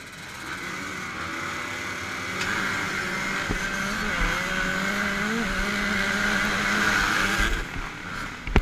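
Motocross bikes launching off the start gate. The nearest bike's engine revs hard and climbs through the gears close to the microphone, over the noise of the pack. A sharp knock comes right at the end.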